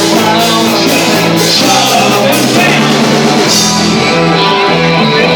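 Rock band playing loud and live: guitars, bass and a drum kit with repeated cymbal hits.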